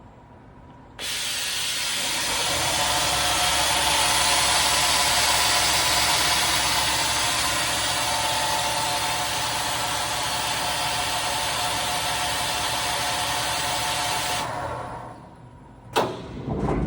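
A Fadal VMC4020 CNC vertical machining center running, a steady hissing mechanical noise with a whine in it. It starts suddenly, dies away about fourteen seconds in, and a sharp clunk follows near the end.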